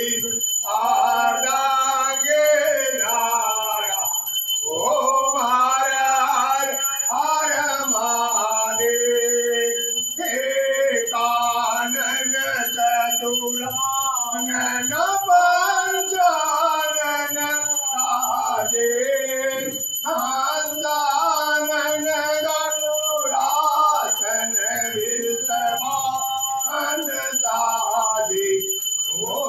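Devotional song: a man's voice singing a chant-like melody, phrase after phrase with short breaths between, over music.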